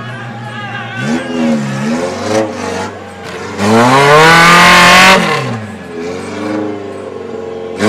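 Jeep CJ off-roader's engine revving hard in the mud pit: a few short revs, then a long full-throttle rev that rises and falls as the wheels spin and fling dirt, then another sharp rev near the end.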